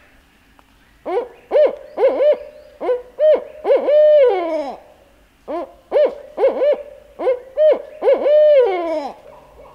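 Barred owl hooting: two rhythmic phrases of about eight hoots each, starting about a second in and again about halfway, each ending in a long note that falls away, the 'who cooks for you, who cooks for you-all' call.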